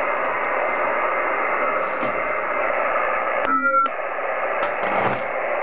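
Kenwood TS-50 HF transceiver's loudspeaker hissing with steady band noise, tuned to 27.600 MHz in lower sideband with no station on the frequency. About three and a half seconds in, the hiss drops out for a moment under a short whistling tone.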